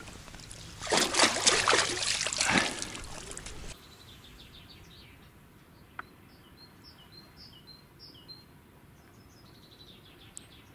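Water splashing hard for about three seconds as a large asp is let go from the hands into the river shallows. It then cuts off, and small birds chirp in quick repeated notes over faint outdoor background.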